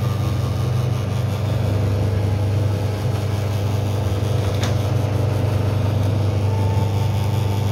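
Screw oil press (expeller) running steadily while it grinds dried tamanu seeds and pushes out press cake: a loud, even mechanical hum over a low drone. One sharp click comes a little past halfway.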